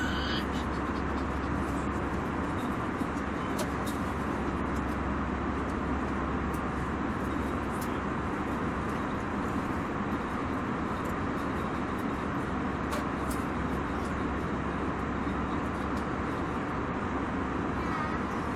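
Airliner cabin interior ambience: the steady, even rumble and rush of the engines and airflow, with a few faint clicks.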